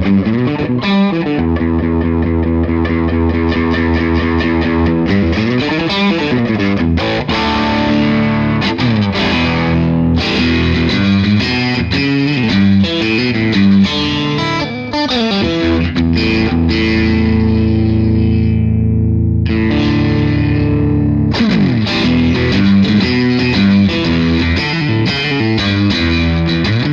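Electric guitar through the overdrive channel of an Iannucci Audio King of Tone pedal, a Bluesbreaker-style overdrive, into a Bogner Shiva amp: overdriven chords and single notes. About two-thirds through a chord rings out and fades, the playing pauses briefly, then starts again. The tone is fairly transparent, less mid-heavy than a Tube Screamer and keeping its bass.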